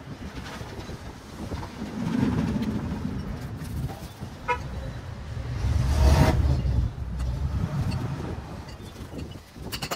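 A motor vehicle passing, its low rumble swelling and then fading away, with a short horn toot about four and a half seconds in.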